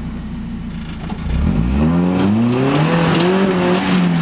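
Off-road truck engine idling, then revving up sharply just over a second in and held at high revs, its pitch wavering slightly.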